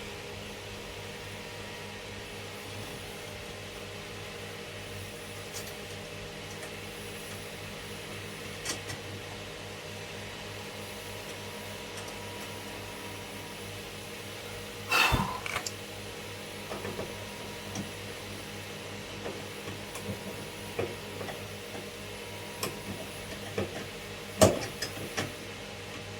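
Clinks and knocks of hand tools and metal terminal hardware being handled while battery cables are connected, with a louder clatter about halfway through and another sharp knock near the end, over a steady low hum.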